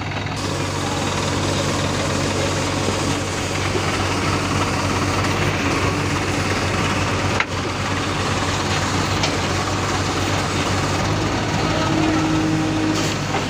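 Diesel engines of a Swaraj 744 XT tractor and a JCB backhoe running steadily while the backhoe pulls the stuck tractor on chains. There is a brief break about halfway through.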